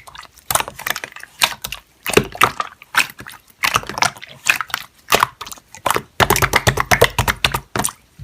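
Slime being squished and worked by hand: a quick, uneven series of sticky clicks, pops and crackles, thickest about six seconds in.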